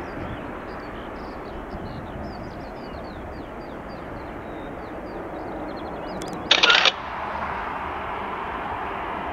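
Steady distant airfield rumble with small birds chirping high above it. About two-thirds of the way in, a sudden loud burst of noise lasts under half a second. After it the background rumble is brighter and hissier.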